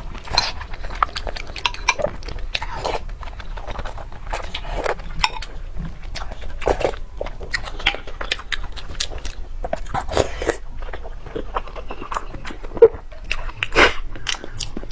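Close mouth sounds of a person biting and chewing food: many irregular short clicks and smacks, with one louder sharp click about thirteen seconds in.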